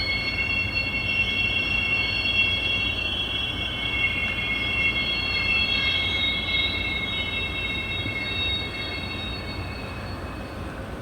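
Steel wheels of locomotives squealing on curved yard track: several high, steady squealing tones at once over a low rumble, easing off toward the end.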